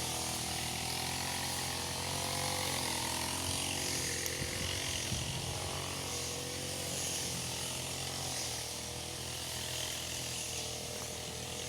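Small two-stroke brush cutter engine running at a distance, its pitch rising and falling slightly as the throttle varies.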